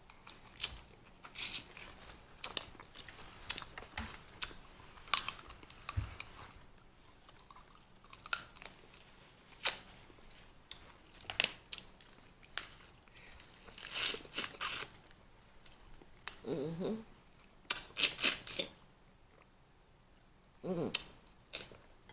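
Close-up eating sounds of a seafood boil: wet chewing and mouth smacks with scattered sharp crunches and clicks. There are two brief hummed voice sounds in the second half.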